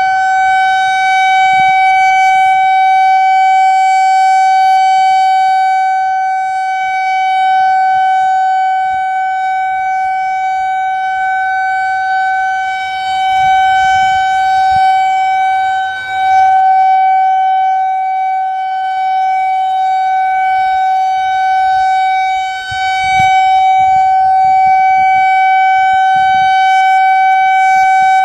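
Whelen tornado warning siren sounding a steady alert tone, one held pitch with overtones, during a routine monthly test. The tone dips briefly twice, about halfway through and again a few seconds later.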